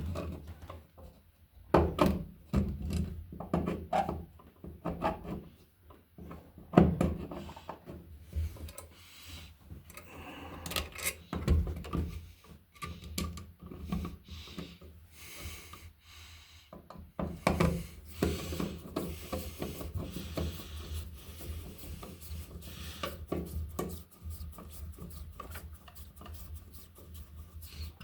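Hands fitting a wall receptacle and its folded wires into an electrical box: irregular knocks, clicks and scraping rubs.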